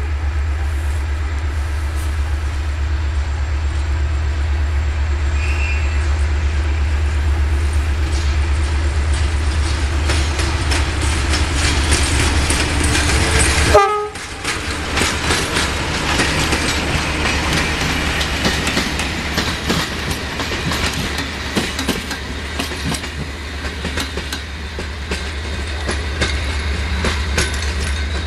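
Diesel locomotive engines running with a deep steady rumble, and a short train horn blast about 14 s in, where the sound cuts abruptly. Then a CFR Electroputere LDE 060-DA diesel-electric locomotive passes close with its train, engine running and wheels clicking rapidly over the rail joints.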